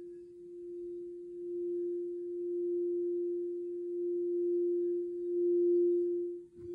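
Crystal singing bowl sounding one steady low-mid tone that swells and ebbs as it is played. Near the end the tone drops out for an instant with a faint knock, then comes straight back.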